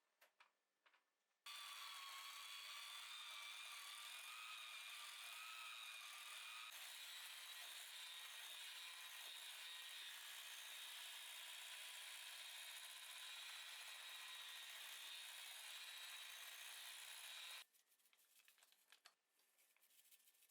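A small electric motor, as in a household appliance, starts abruptly and runs with a steady high whine that wavers slightly in pitch, then cuts off suddenly after about sixteen seconds. A few light clicks come before it starts and after it stops.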